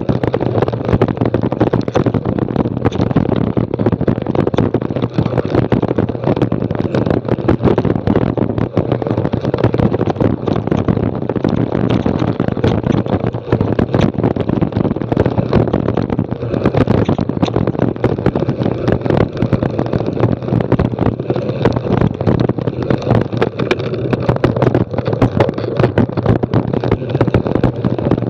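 Mountain bike descending fast over a rocky, loose-gravel singletrack: a continuous crunch and rattle of tyres on stones and the bike shaking over the rough ground, full of dense irregular clicks and knocks, with wind buffeting the microphone.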